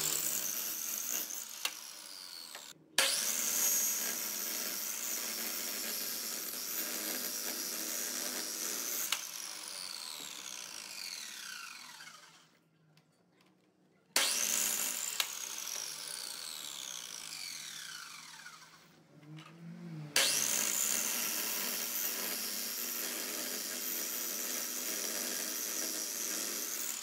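Electric miter saw spinning up with a high whine and cutting through a log, repeated several times. After a cut the blade's whine falls steadily in pitch as it spins down, and twice the sound stops dead for a moment before the next start.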